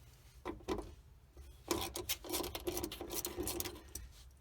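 Ratchet with an 8 mm socket clicking in quick runs as it backs out the small screws of a fuel pump retaining ring. A couple of short scrapes come about half a second in, then a dense stretch of rapid clicking runs from before the middle until shortly before the end.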